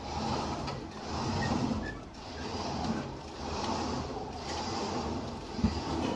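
Recovery truck's winch running steadily as a car is let down the truck's ramps, the sound swelling and easing about once a second, with a single sharp clunk about five and a half seconds in.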